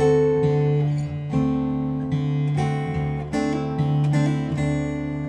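Taylor custom koa jumbo steel-string acoustic guitar in open G (taro patch) slack key tuning, played fingerstyle: a steady thumbed bass under a picked melody phrase around a D7 chord, with hammer-ons.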